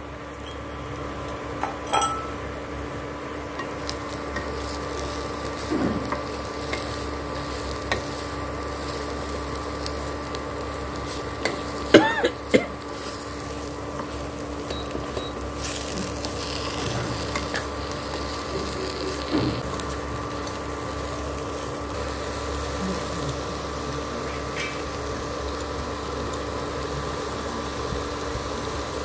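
Sliced bitter gourd frying with a soft sizzle while a spatula stirs and scrapes around the nonstick pan. A few sharp knocks against the pan ring out, the loudest about twelve seconds in, over a steady hum.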